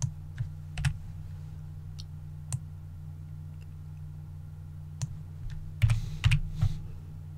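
Computer keyboard keys and mouse buttons clicking: scattered single clicks through the first few seconds, then a quick run of several clicks about six seconds in, over a steady low hum.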